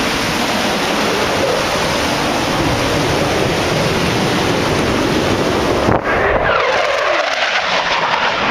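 Low-flying jet aircraft roaring past. About six seconds in, the sound changes and a falling whine sweeps downward as the jet passes and moves away.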